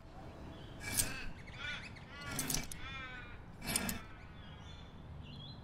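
Designed sound effects for windows being swiped off a building: a series of short whooshes about a second apart, the largest around two and a half seconds in carrying wavering pitched tones.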